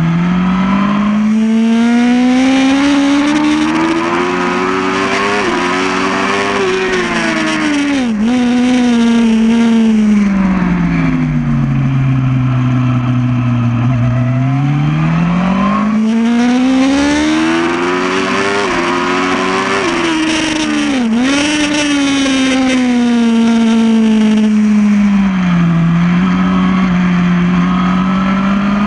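Yamaha R1 inline-four sport-bike engine at full racing effort. The revs climb hard with quick dips at the upshifts, then fall away smoothly as it slows for a corner. The cycle happens twice.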